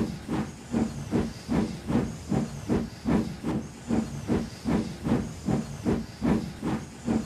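Steam tender locomotive puffing steadily as it pulls its coaches, an even beat of about two and a half chuffs a second with the hiss of escaping steam.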